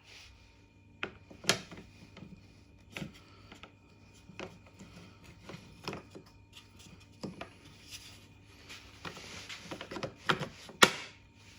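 Hard plastic parts of a car's charging socket flap being handled and pushed into place: scattered clicks and taps with some rustling, the loudest click near the end.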